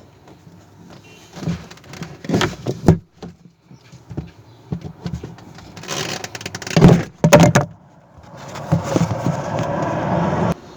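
Clicks, knocks and scraping of hands and tools working on the washing machine's spin-dryer parts, with the loudest knocks a little past halfway. Near the end a steady rushing noise runs for about two seconds and cuts off suddenly.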